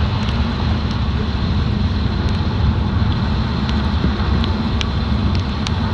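Car driving, with a steady low rumble of road and engine noise and a few faint clicks in the second half.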